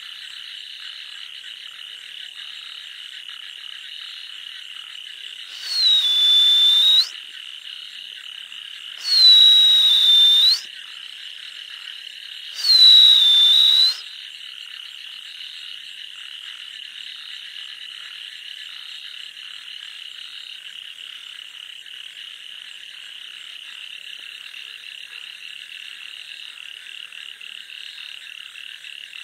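A dense night chorus of frogs calling without pause in a paddy field. Three loud whistle-like calls, each dropping in pitch and then holding for about a second, come about three and a half seconds apart in the first half.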